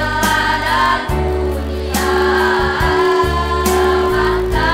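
Women's choir singing sustained chords, with a low accompanying bass note that shifts every second or so and a sharp percussive hit about two seconds in and again near the end.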